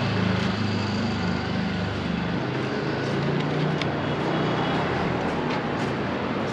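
Street traffic: a motor vehicle's engine running close by, its low hum fading out about two and a half seconds in, leaving steady road noise.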